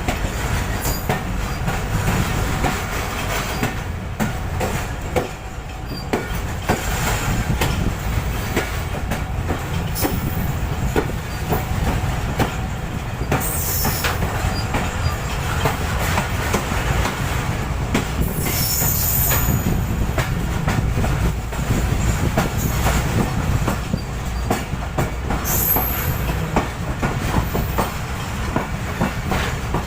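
Passenger train rolling steadily over the rails, its wheels clacking over joints and points under a continuous low rumble, with short high-pitched wheel squeals three times as it runs through the crossover.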